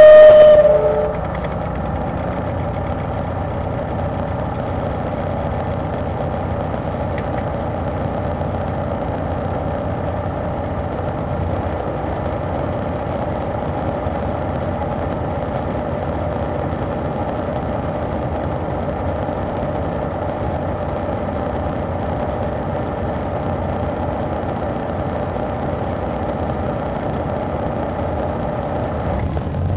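The Detroit Diesel Series 60 diesel engine of an MCI D4000 coach idling steadily, heard from inside the cabin at the rear of the bus. A loud single-pitched beep cuts off about a second in.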